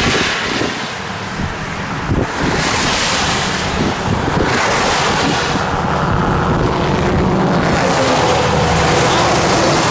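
Strong wind buffeting the microphone, a loud rushing noise that swells and eases in gusts.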